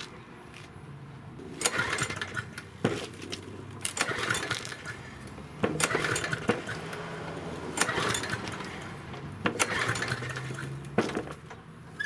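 Yard Machine 6 HP lawn mower engine being pull-started about five times in a row, each pull a rattling, clattering turn-over of the engine with a low hum, and none of them catching: the engine won't start.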